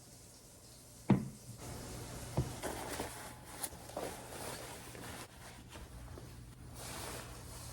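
A sharp knock about a second in, a lighter one just over a second later, then scattered small clicks and taps of objects being handled, over a faint steady low hum.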